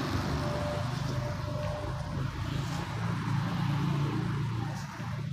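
Steady low background rumble with an even hiss, and no distinct events.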